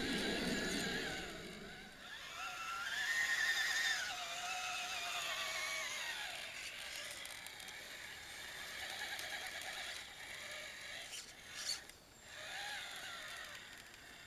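Electric motor and gearbox of a Tamiya CC-01 RC crawler whining, the pitch rising and falling with the throttle as it crawls over dirt and gravel. A sharp click comes a little before the end.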